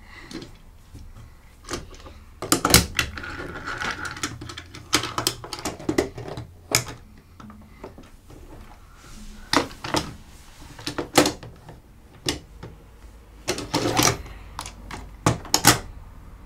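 Hard plastic toy pieces clicking and knocking against each other as they are handled, in irregular sharp clicks with brief clusters.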